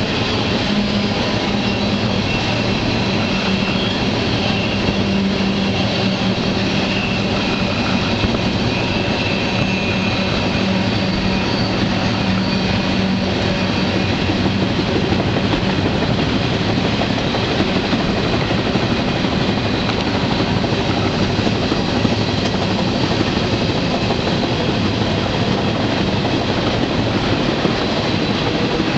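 Freight train running along the line, heard from aboard one of its cars: a steady, loud rumble and rattle of the wheels on the rails.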